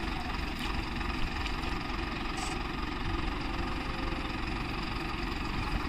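Diesel farm tractor engines idling steadily.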